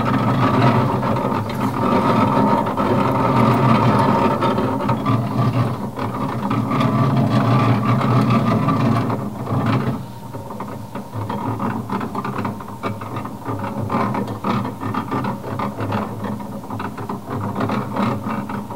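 Motor-driven reels of a wood-and-steel, slot-machine-style electromechanical sculpture spinning: steady mechanical running with many rapid clicks, a little quieter from about halfway through.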